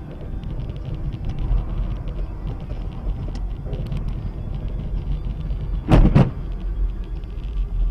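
Vehicle road noise as picked up by a dash cam: a steady low rumble with light rattling clicks. About six seconds in it is broken by two loud bangs a fraction of a second apart, the impact of a car crash.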